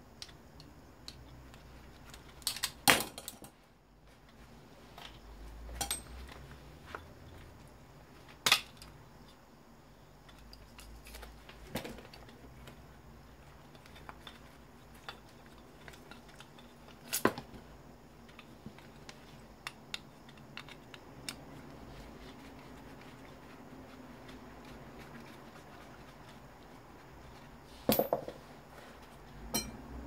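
Irregular clicks, clinks and knocks of metal and plastic fan parts being handled and set down while an electric fan is taken apart by hand.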